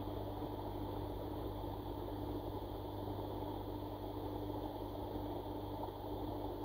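Steady low mechanical hum with a dense rushing noise, heard underwater in a koi pond, typical of the pond's pump running.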